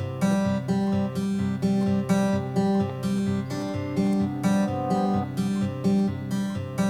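Background music: acoustic guitar strumming steady chords at about two strums a second.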